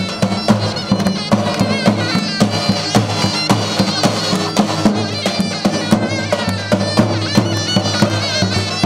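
Turkish davul and zurna playing folk dance music: steady bass-drum beats under a shrill, reedy, ornamented zurna melody.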